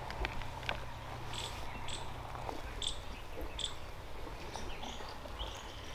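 Faint outdoor ambience: short, high chirps come every half second to a second, over a low steady hum.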